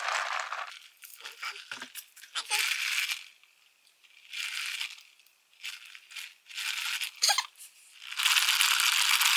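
A rattling, shaking sound in several short bursts, then a longer, louder spell of rattling near the end.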